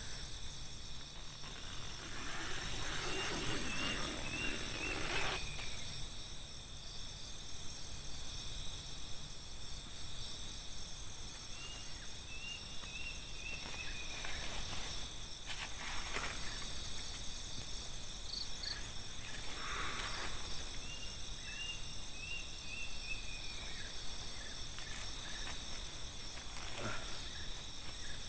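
Night chorus of crickets and other insects, a steady high-pitched trilling, with a short run of chirping notes from an animal call three times. Now and then rustling and knocks of someone moving about inside a nylon dome tent and opening its door.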